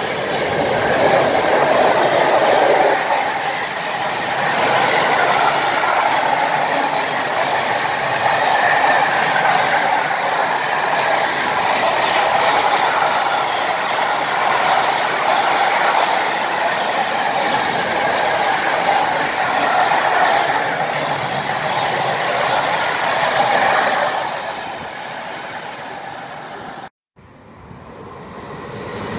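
Freight train of open wagons rolling past at speed: a steady rushing rumble of wheels on rail that eases off near the end. After a sudden cut, a train is heard approaching, growing louder.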